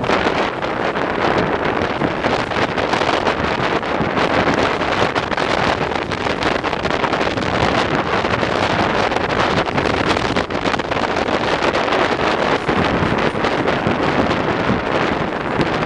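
Wind buffeting the microphone of a camera held out of a moving passenger coach's window, over the steady running noise of the train on the track.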